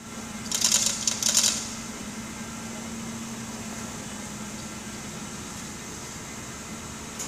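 Two short clattering rattles about half a second and a second in, then a steady workshop hum with a faint high whine.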